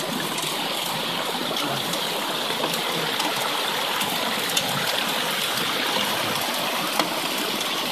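Water pouring from a gravity-feed pipe into a metal gold-sluice box and rushing down over its riffles: a steady splashing flow with a few faint clicks. The miner says too little water is coming through the setup.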